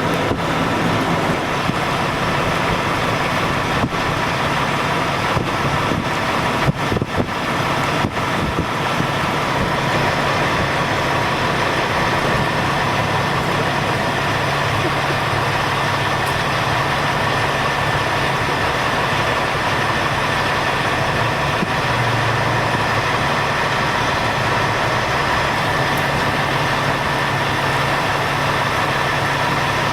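Engine idling steadily under a constant rush of wind and heavy rain, with a few brief gusts buffeting the microphone in the first several seconds.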